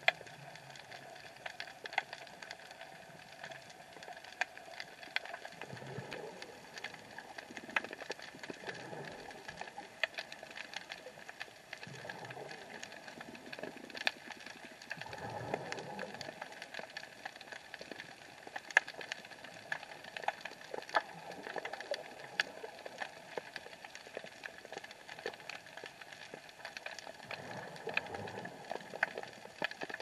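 Underwater sound through an action camera's waterproof housing: constant irregular crackling and clicking, with low swells of moving water every few seconds.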